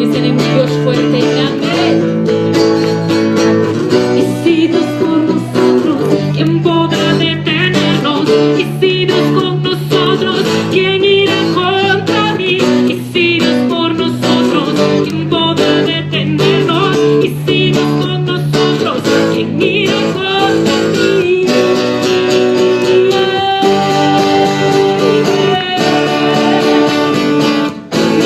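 Acoustic guitar accompanying a group singing a worship song.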